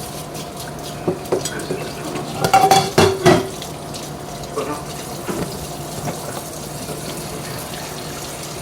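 Cookware and utensil clatter: a few light knocks, then a cluster of louder clanks with a brief ring about two and a half to three and a half seconds in, over a steady low hum.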